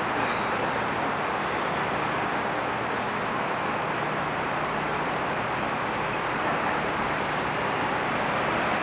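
Fire Boat 7's engines running steadily as the fireboat manoeuvres off the pier: a constant, even rush with a faint low hum underneath.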